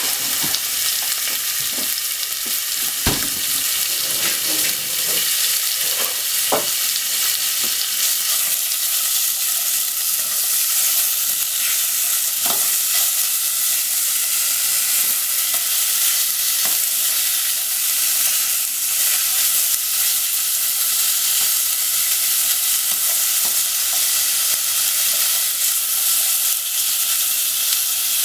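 Thin slices of pork sizzling steadily in a hot nonstick pot, with a few sharp taps as wooden chopsticks separate and turn the meat.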